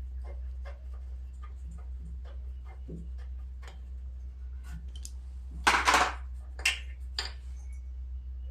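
Ratchet wrench with a spark plug socket clicking about two to three times a second as a small engine's spark plug is backed out, over a steady low hum; over the last few seconds come several louder metal clinks and clatters of tools.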